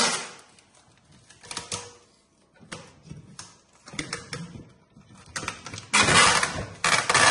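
Aluminium drink cans clicking and knocking against each other as they are pushed into tight rows on a tray. Near the end comes a longer burst of crinkling plastic wrap.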